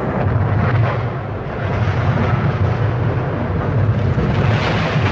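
Class 46 diesel locomotive and three coaches ploughing at about 100 mph into a derailed nuclear-fuel flask wagon: a loud, sustained crash rumble with its weight low down, holding steady for several seconds rather than a single sharp bang.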